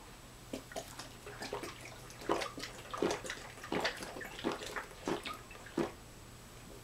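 A person chugging coffee creamer straight from a plastic bottle: a run of quick gulps, roughly one every 0.7 seconds.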